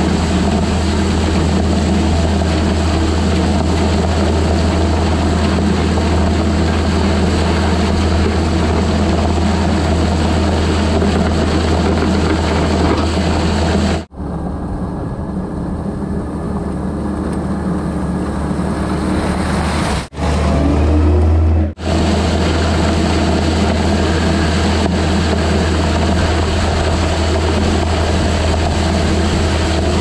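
Skid steer engine running steadily under load as its grader blade pushes loose gravel, the stone rolling and scraping ahead of the blade. About 14 s in the sound turns quieter and duller, briefly deepens and grows louder around 20 s, and returns to the close, hissing engine-and-gravel sound near 22 s.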